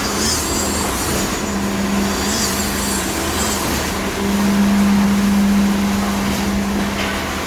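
KCP63 concrete pump truck running: a steady machine drone with a strong constant hum, which swells louder about four seconds in for a couple of seconds.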